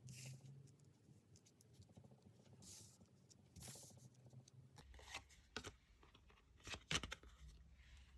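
Faint handling of tarot cards: a couple of soft swishes as cards slide, then a series of light taps and clicks, the loudest near the end, over a faint low hum.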